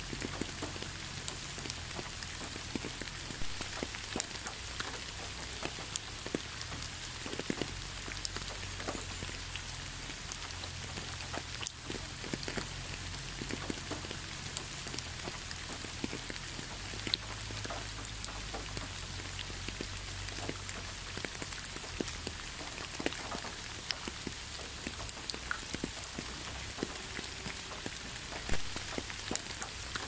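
Waterfall water splashing steadily: an even hiss of falling water dotted with many small drips and splashes.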